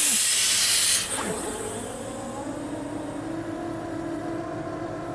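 A loud hiss cuts off about a second in. Then the Scania R650 tanker's V8 runs steadily at raised revs, droning as it drives the slurry pump through the PTO while the tank loads.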